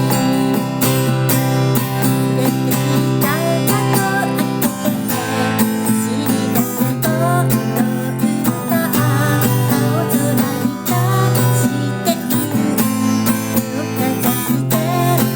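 Acoustic guitar strummed in a steady rhythm at about 125 beats per minute, with a voice singing a melody over it.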